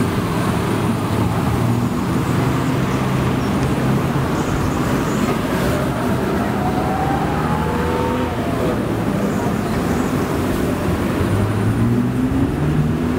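Street traffic: motor vehicle engines running steadily, with an engine rising in pitch near the end as it speeds up.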